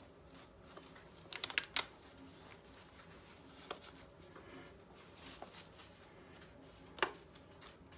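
Hands pressing potting soil down around a transplanted seedling in a plastic pot: faint scratchy rustling of soil with a few sharp clicks and taps, several together about a second and a half in and a louder single click about seven seconds in.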